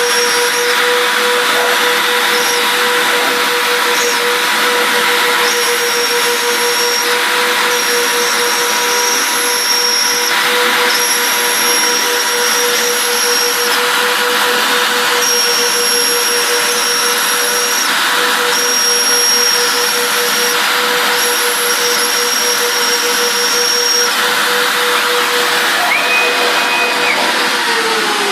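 Twin CNC router spindles running at about 30,000 rpm with a steady high whine, milling through two stacked sheets of 3 mm poplar plywood with a 1.5 mm cutter. A higher whine switches on and off every second or two as the machine moves. Near the end the spindle whine starts to fall in pitch as the spindles wind down.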